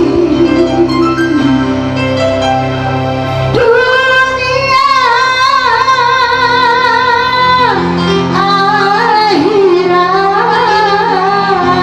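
Music: a woman singing with a wavering vibrato over keyboard accompaniment. Her voice comes in about three and a half seconds in, after a stretch of instrumental notes.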